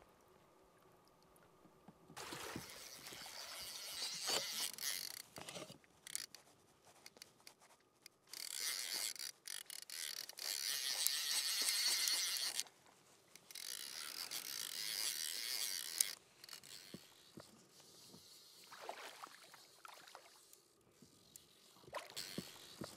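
Fly reel's ratchet buzzing in three long bursts, the longest about four seconds, growing fainter after about sixteen seconds in.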